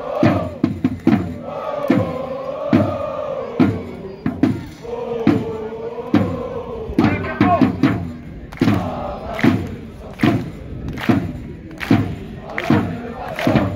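A crowd of football ultras chanting in unison, their long sung lines carried over a steady, loud beat of about one strike a second.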